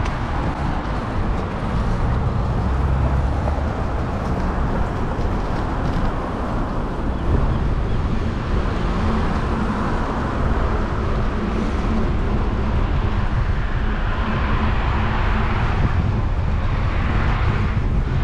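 Wind rumbling on the microphone while cycling, over steady road traffic noise, which swells near the end as a vehicle goes by.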